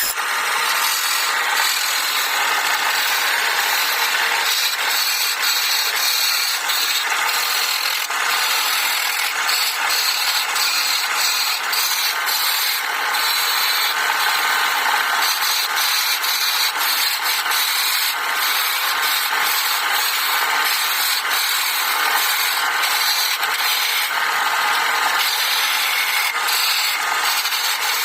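A tool working wood: steady scraping with many small clicks running through it.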